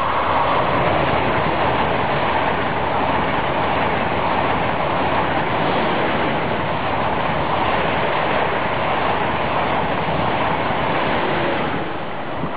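ICE high-speed electric train passing close by at speed: a steady rush of wheel and air noise as the power car and coaches go by, easing off near the end as the train clears.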